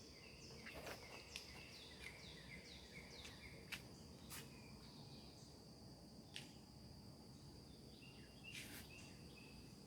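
Near silence: a faint background with a steady high whine, many short falling chirps and a few sharp clicks.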